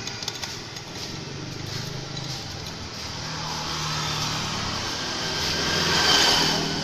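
A motor vehicle's engine running, growing louder to a peak about six seconds in and then easing off.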